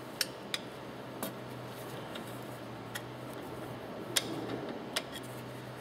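About six light, irregular metal clicks from a screwdriver tip knocking against the gland plate and plunger rod of a Track C1 piston pump as gland packing is pressed down into the gland, over a low steady hum.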